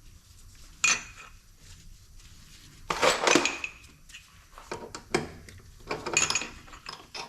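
Metal clamps and tools clinking and clanking as a cylinder head is clamped down on a machine table: a handful of separate knocks with a short ringing tail, one about a second in, a cluster about three seconds in, and more around five to six and a half seconds.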